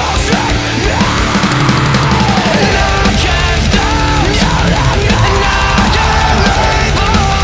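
Loud heavy metal music with guitars and drums.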